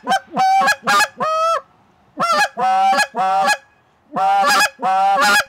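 Goose call blown in a calling cadence: three runs of quick honks and clucks with short breaks between, several drawn-out notes wavering and vibrating in pitch. The wavering notes are the train note, a high-pitched, whiny pressure note made by slowly raising the tongue to the roof of the mouth while the reed vibrates.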